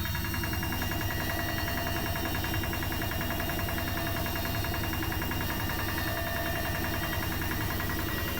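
Bosch Maxx washing machine running with a steady, fast, even rattle from the motor area: the strange motor noise the owner is asking about.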